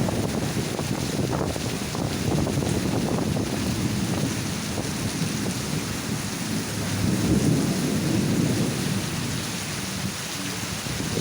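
Heavy rain falling in strong, gusty wind: a dense, steady rush with a low rumble that swells loudest about seven to eight seconds in.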